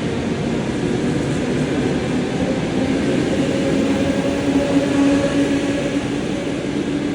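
ED4M electric multiple unit pulling away: a steady rumble of the cars running on the rails, with a traction-motor hum that rises slightly in pitch in the middle as the train gathers speed.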